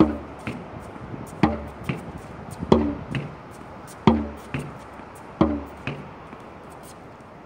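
Tennis ball rallied against a practice backboard in a steady rhythm: a loud hit about every 1.4 seconds, each followed about half a second later by a lighter, higher hit. This racquet-and-wall pattern repeats five times and stops about six seconds in.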